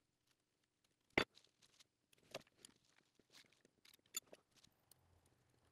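Small hand tools clicking against the rocker-arm adjusting screws and lock nuts of a Subaru EJ253 SOHC cylinder head during a valve adjustment. A handful of separate sharp metal clicks, the sharpest about a second in.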